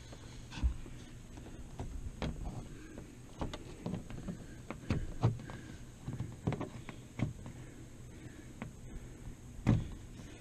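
Irregular taps, knocks and rustling of hands pressing the edge of a pop-up camper's canvas into the metal track on the door frame, with a few louder thumps about half a second in, about five seconds in and near the end.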